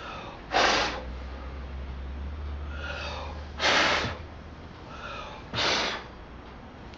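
Three short puffs of air, about two to three seconds apart, blowing dust off computer parts.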